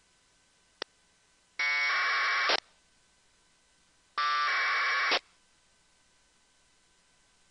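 Two APRS packet bursts received on 144.390 MHz narrowband FM through an RTL-SDR: each is about a second of harsh, buzzing 1200-baud AFSK data tones, the first about a second and a half in and the second about four seconds in. A short click comes just before the first.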